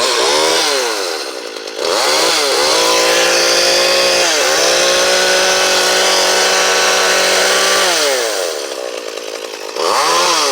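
Ryobi gas chainsaw's two-stroke engine running after being started. It is revved up and held at high speed for about six seconds with one brief dip, and drops back to a lower idle between the revs.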